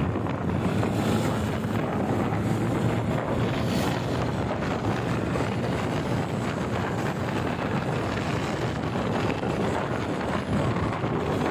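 Wind rushing over a handlebar-mounted phone's microphone on a motorcycle cruising at about 60 to 75 km/h, over the steady drone of its engine and the road.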